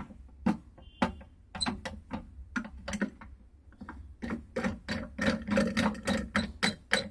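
Metal clamp block of a pre-ink stamp making machine being pushed back into place and its top screw knob turned, giving a run of irregular clicks and knocks that grows quicker and denser about four seconds in, over a low steady hum.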